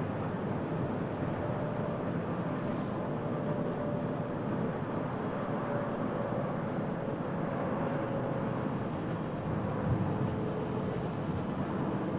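Airbus A350-900 jet engines running as a steady rumble, with a faint whine that drifts slowly lower in pitch.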